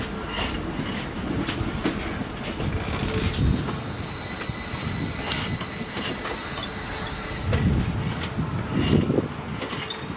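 Train moving through the station, its wheels knocking over rail joints, with a high, steady wheel squeal for a few seconds in the middle.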